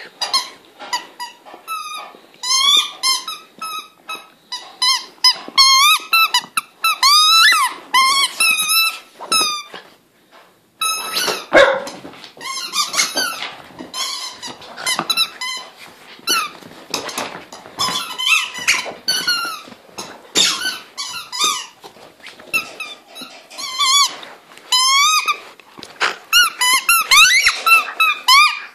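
Squeaky rubber ball squeaking over and over as a Jack Russell terrier bites and chews it, with a brief pause about ten seconds in.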